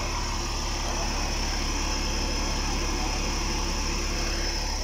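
Double-decker bus's rear-mounted engine idling steadily, heard close behind the bus.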